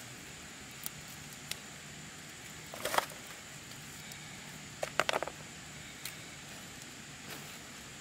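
Hands tying a grass binding around split bamboo over a fan-palm leaf: a few small clicks, then two short bursts of crackling rustle about three and five seconds in.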